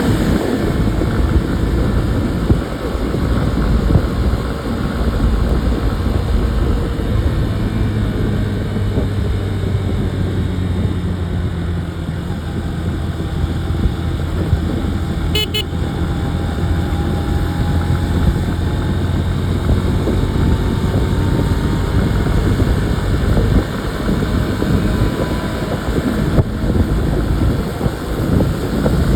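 Motorcycle engine running steadily at riding speed, with road and wind rumble on a phone microphone. About halfway through there is a short burst of high beeps.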